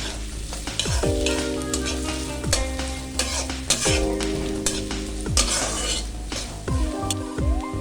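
Chopped onion sizzling as it fries in hot oil in a saucepan, stirred with repeated short scrapes and knocks of the spoon against the pan.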